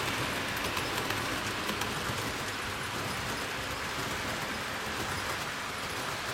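HO-scale model train's metal wheels rolling along the track: a steady rushing hiss with faint fine ticking, growing slightly fainter as the cars pass and move away.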